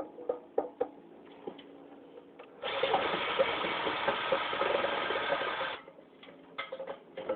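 Cordless drill-driver running for about three seconds, starting about two and a half seconds in and stopping abruptly, as it backs out a screw from a ceiling fan's housing. Light metal clicks and taps of parts being handled come before and after it.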